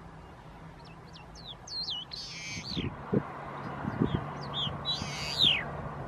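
A songbird calling: a run of quick slurred whistles, then a harsher buzzy note, the pattern given twice. Soft low thumps come and go beneath it over a steady low hum.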